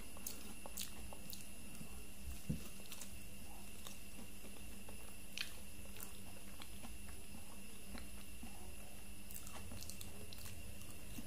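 Someone eating soft durian flesh by hand: quiet chewing with a few small mouth clicks and smacks, the sharpest about two and a half seconds in, over a steady low hum.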